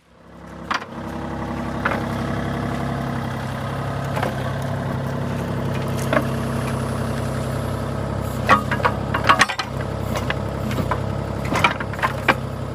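Kubota U35-4 mini-excavator's diesel engine running steadily at idle. Several sharp metallic clanks come in the last few seconds.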